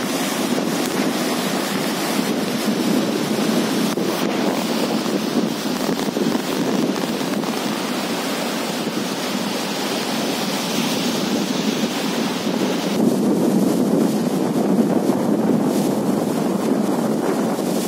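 Heavy surf breaking and churning against sea rocks, mixed with strong wind buffeting the microphone: a steady, loud rushing noise. About two-thirds of the way through, the upper hiss thins and the low rush gets slightly louder.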